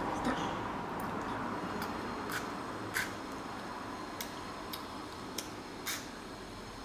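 Sparse light clicks and ticks, roughly one every half second to a second, from a small plastic candy container being handled, over a low steady room hum.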